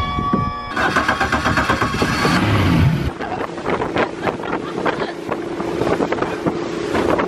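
Speedboat under way at speed, driven by a Suzuki 200 four-stroke outboard: engine hum under heavy wind buffeting on the microphone and rushing water. A steady engine drone stands out in the second half.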